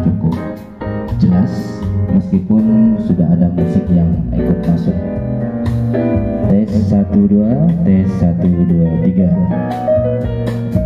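Instrumental jazz with guitar and bass playing loudly through a home-built stereo amplifier on a Sanyo STK417-100 chip and wooden-cabinet loudspeakers, streamed from a phone over Bluetooth as a sound check of the amplifier.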